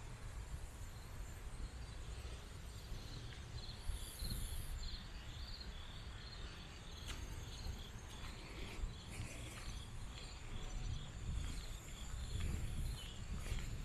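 Insects chirping in runs of rapid, evenly repeated pulses over a low steady rumble.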